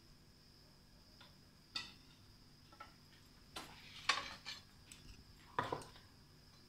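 A metal spoon clinking and scraping against a glass bowl while custard is spooned and spread, about half a dozen light, scattered clinks with the sharpest about four seconds in.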